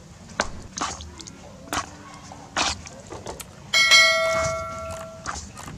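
Short wet smacks of chicken wings being turned in a thick marinade in a metal bowl, then about four seconds in a metal spoon knocks against the bowl and the bowl rings like a bell, fading over about a second and a half.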